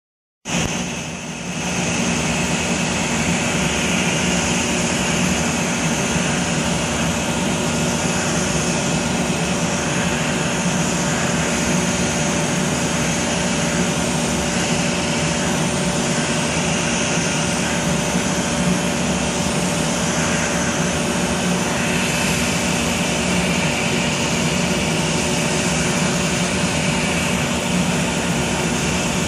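Zimmer skin-cooling unit blowing chilled air through its hose nozzle onto the skin to numb it, a steady rushing blow with an even hum under it. It starts abruptly about half a second in.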